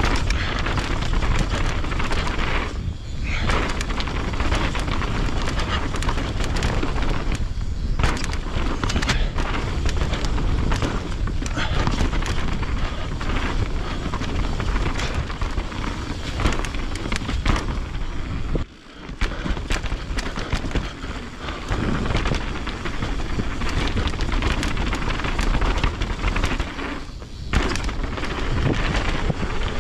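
Mountain bike riding fast over a rough dirt trail: wind rumbles over the microphone while the tyres and frame rattle constantly over the rocky ground. The noise dips briefly a few times, most sharply about 19 seconds in.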